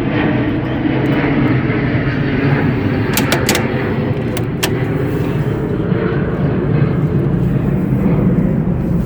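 Steady loud rumble of an airplane passing over, with a few sharp clicks around the middle.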